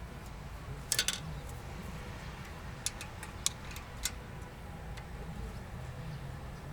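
A quick cluster of sharp clicks about a second in, then three single clicks over the next few seconds, over a steady low hum.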